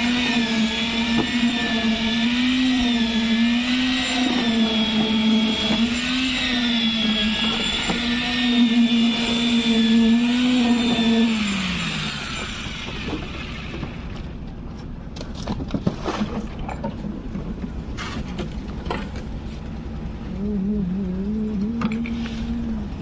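Concrete needle vibrator running with a steady, wavering hum. About eleven seconds in the hum winds down in pitch and gives way to a rougher, quieter rumble with some clatter, and the hum starts up again near the end.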